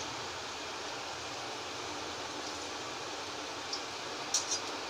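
Semolina pakoras deep-frying in hot oil in an aluminium kadhai, a steady sizzle. Near the end, a metal spatula clicks against the pan a few times as it goes in to turn them.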